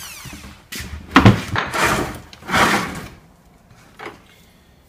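A few knocks, clunks and scrapes of parts and the plastic tank being handled and set down on a wooden workbench, the loudest a sharp knock about a second in. Quieter toward the end.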